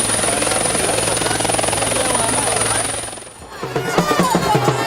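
Steady helicopter-like aircraft engine noise with a fast flutter, fading out about three seconds in. Music with percussion then starts.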